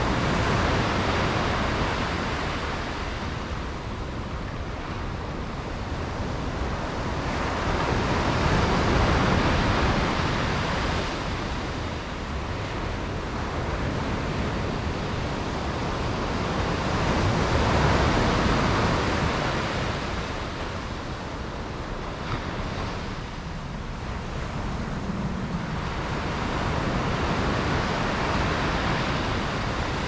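Sea waves breaking and washing up a beach: a continuous surf sound that swells and ebbs in long surges, loudest about every nine seconds.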